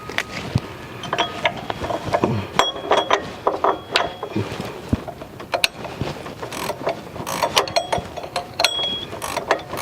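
Metal hand tools clicking and clinking against the power steering pump pulley and its bolt, with ratchet clicks as the fastener is worked. The clicks come in an irregular stream, some with a short metallic ring.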